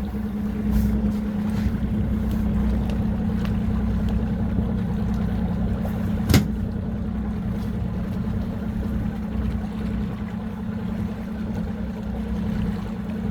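Fishing boat's engine running steadily at low speed, a constant low hum. One sharp knock about six seconds in.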